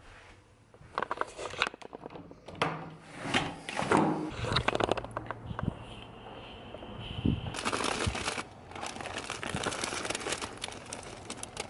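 Close handling noise: crinkling and rustling with many scattered clicks and knocks, growing into denser rustling from about two-thirds of the way in.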